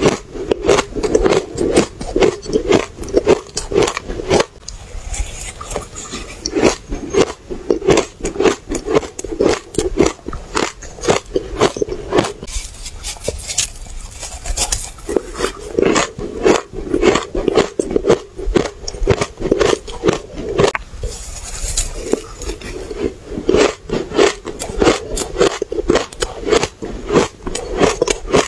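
Close-miked chewing of mouthfuls of powdery ice coated in matcha powder: dense runs of sharp, crisp crunches, with brief pauses between mouthfuls.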